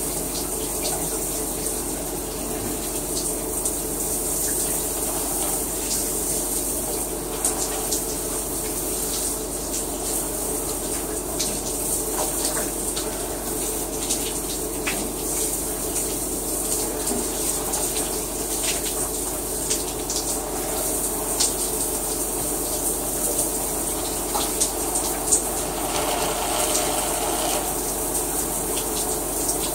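A shower running: a steady spray of water with scattered small splashes and drips.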